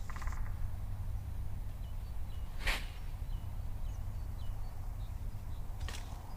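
Forest ambience: a steady low rumble with faint short bird chirps, and two brief sharp noises, the louder one about a third of the way in and a softer one near the end.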